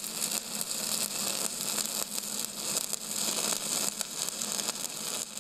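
Stick welding arc crackling and hissing steadily, fading near the end.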